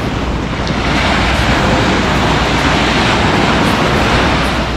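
Small sea waves breaking and washing up a sandy beach, a steady rush of surf that swells louder through the middle and eases near the end.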